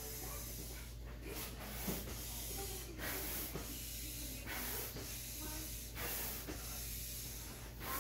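Air pump inflating a vinyl inflatable kayak: a rushing hiss of air in repeated strokes, about one every second and a half, over a faint steady low hum.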